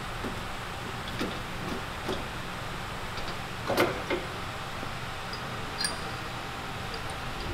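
Light knocks and clicks of a Salisbury differential carrier being fitted into its axle casing: a handful of separate taps over a low steady hum, the loudest about four seconds in.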